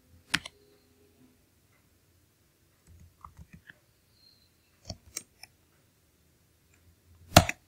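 Scattered keystrokes on a computer keyboard as a shell command is typed: a few short clicks in small groups, with one louder key press near the end.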